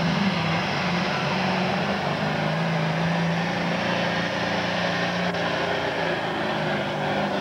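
Massey Ferguson Super Farm class pulling tractor's turbocharged diesel engine running flat out under load as it drags the sled down the track, a loud, steady engine note.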